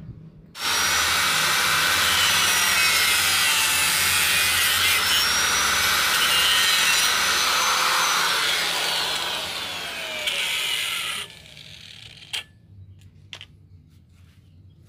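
Handheld electric angle grinder running and cutting small strips of wood, with a high whine over dense grinding noise; it starts suddenly about half a second in and stops abruptly about eleven seconds in. A couple of light knocks follow near the end.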